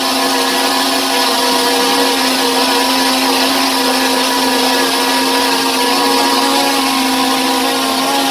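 SJRC F11 Pro quadcopter's brushless motors and propellers running at a steady speed, a constant whine over the rush of the props, during a test after repair.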